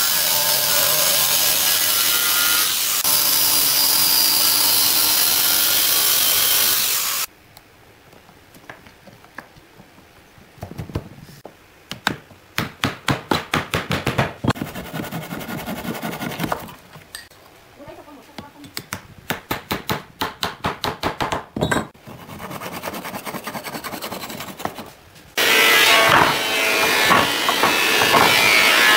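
An angle grinder cuts through the steel rod ends sticking out of a wooden slat panel, running loud and steady for about seven seconds before stopping abruptly. A handsaw then cuts wooden dowels in two runs of quick back-and-forth strokes, about five a second. Near the end another power tool starts up loud.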